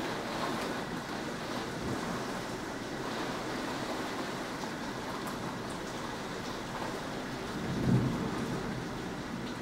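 Rain falling in a severe thunderstorm, a steady even hiss, with a brief low rumble of thunder about eight seconds in.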